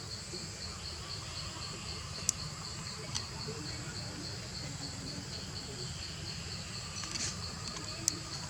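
An insect chirping in a steady, rapid pulse, about five pulses a second, with a few sharp clicks over a low background rumble.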